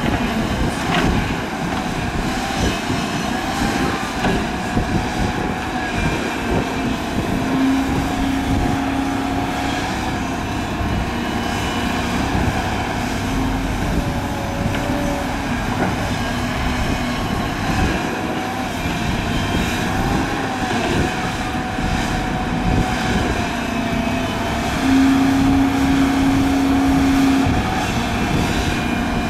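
Hydraulic excavator working under load: its engine runs steadily with a wavering hydraulic whine over it. A lower steady hum swells twice, for about two seconds each time, about 8 seconds in and again near the end.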